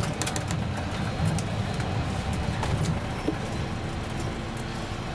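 Karosa C954E bus's engine and running gear heard from inside the passenger cabin, a steady low rumble with light rattles, easing off a little about three seconds in as the bus slows.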